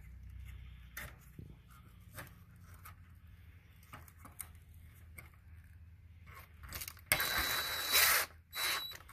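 Small scrapes and clicks from handling a plastic radio mounting bracket, then about seven seconds in a cordless power driver runs with a high whine for about a second, driving a short screw through the bracket into the side of the car radio, with a shorter second burst just after.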